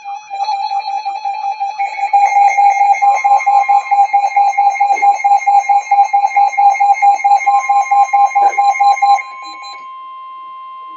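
Electronic emergency-alert beeps: a loud, rapidly pulsing tone, about five beeps a second, with several more beeping tones layering in over it. The pulsing stops about nine seconds in, leaving a steady tone at two pitches.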